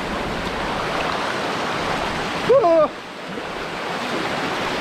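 Steady rush of running water from a stream along the trail. A short voice sound cuts in about halfway through and is the loudest moment.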